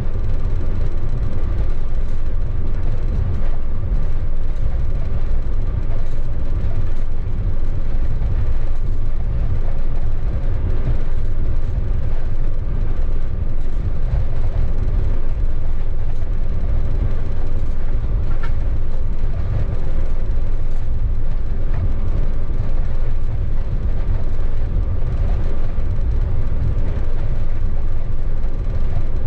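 Locomotive running light, heard from inside its cab: a steady, loud low rumble of the drive and wheels on the rails, with a faint steady high tone above it.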